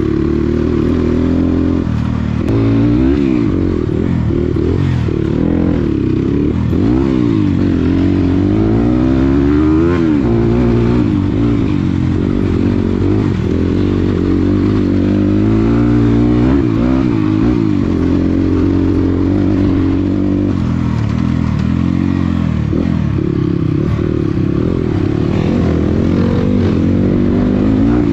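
Dirt bike engine running under way, its pitch rising and falling again and again as the throttle is worked and gears are changed.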